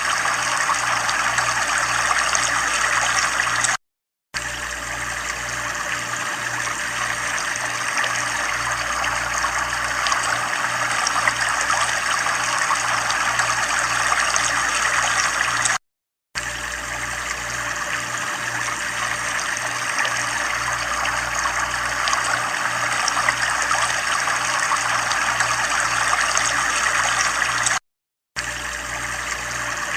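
Running water trickling steadily, with a low pulsing hum beneath it. The sound cuts out completely for about half a second three times, roughly every twelve seconds, where a recording loops.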